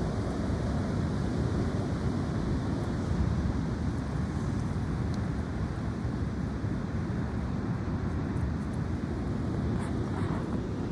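High wind blowing, a steady low rumbling rush with wind buffeting the microphone.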